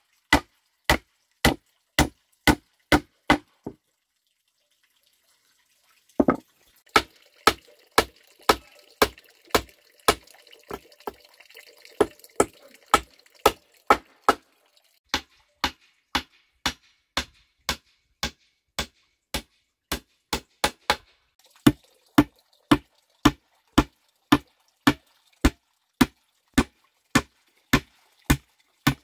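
Claw hammer driving nails into thick wooden planks: a steady run of sharp blows at about two a second, broken once by a silence of about two seconds a few seconds in.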